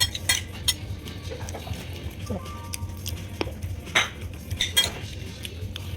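Cutlery clinking against a plate as someone eats, a scatter of sharp clinks with the loudest about four seconds in and just before five.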